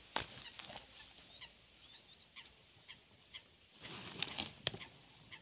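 Faint outdoor ambience of small birds chirping in short, scattered calls, with a few sharp clicks and a brief rustle about four seconds in as the dry grass and fishing gear are handled.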